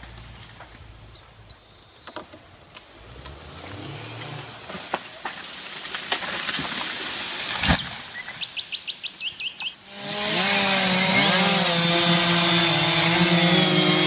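Birds calling with short repeated high notes. About ten seconds in, a chainsaw cuts in abruptly, loud and running steadily at high revs as it saws through a felled tree trunk.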